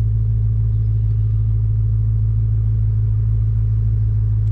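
A 2021 Dodge Charger SRT Hellcat Redeye's supercharged 6.2-litre HEMI V8 idling, a steady low drone heard from inside the cabin.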